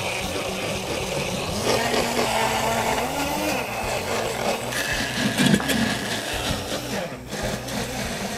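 Powelix countertop blender motor running, grinding whole shallots, garlic and candlenuts in oil and sweet soy sauce into a wet spice paste. Its pitch wavers as the load on the blades changes.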